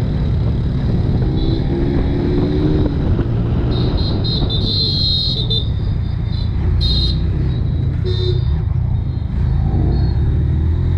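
Honda X-Blade's single-cylinder engine running while riding, a steady low drone, with several short shrill high-pitched toots from the surrounding traffic from about four seconds in.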